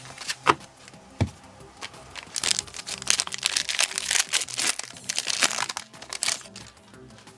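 A Pokémon booster pack's foil wrapper crinkling and tearing as it is pulled open by hand. It is preceded by a few light clicks and taps of cards being handled.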